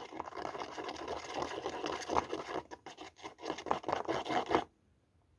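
Fingertip rubbing and pressing soft chocolate into a thin plastic mould, a dense scratchy rustle of many short strokes that cuts off suddenly about four and a half seconds in.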